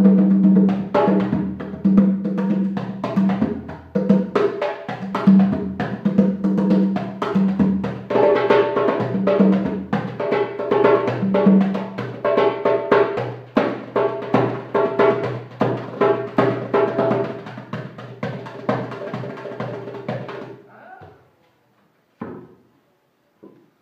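Hand drumming on a djembe and a second hand drum, fast slaps and tones over steady pitched backing music. The drumming and the music stop together about 21 seconds in, followed by a few dull thumps as the drums are handled.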